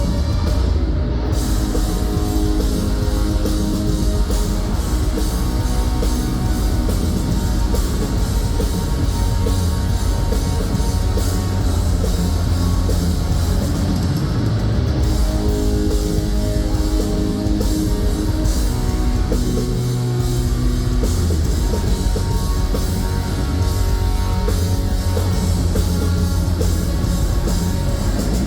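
Rock band playing loud heavy rock: electric guitars over a drum kit, running steadily throughout.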